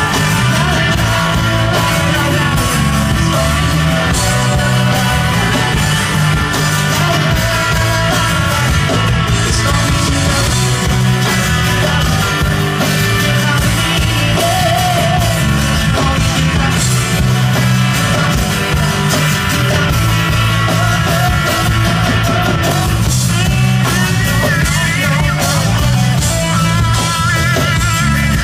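Live band playing amplified through outdoor PA speaker stacks: electric guitars, bass and drums keeping a steady rock beat, with a singer's voice at times.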